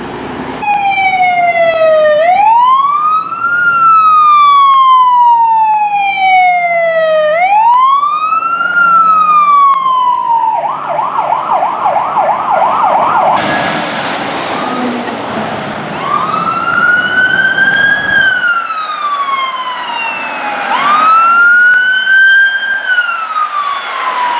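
Emergency vehicle sirens. A wail climbs and falls slowly twice, then switches to a fast yelp for about three seconds. After a cut, another wail climbs and falls twice over engine and traffic noise.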